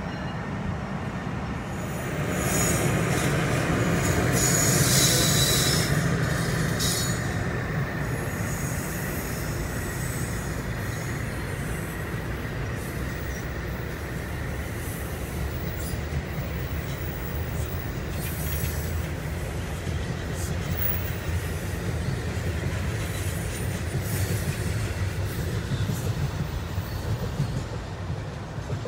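NJ Transit electric locomotive and its double-deck MultiLevel coaches rolling past: a steady rumble of steel wheels on rail, loudest as the locomotive goes by, with a high metallic wheel squeal about five seconds in. The rumble carries on evenly as the coaches pass and eases a little near the end.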